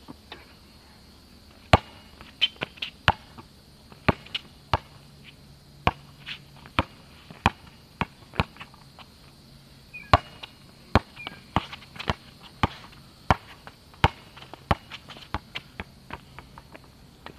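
Basketball being dribbled on an outdoor asphalt court: a long run of sharp bounces, about one or two a second, some coming in quick pairs.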